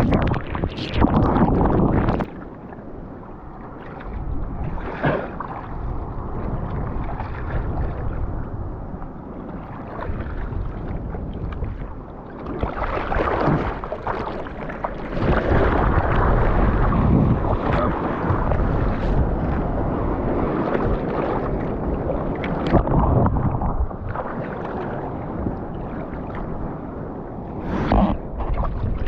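Sea water rushing and splashing around a surfer's GoPro, with wind buffeting the microphone. There are short splashes throughout and a longer, louder rush of water in the middle.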